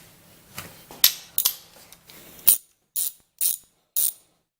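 Hand ratchet clicking in short strokes as the loosened cylinder head bolts of a Briggs & Stratton L-head engine are backed out, the strokes settling into about two a second in the second half.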